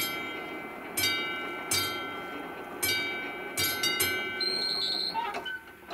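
Level-crossing warning bell ringing with irregular strikes about once a second, each leaving a ringing tone that fades, while the barriers lower; it falls silent about five seconds in.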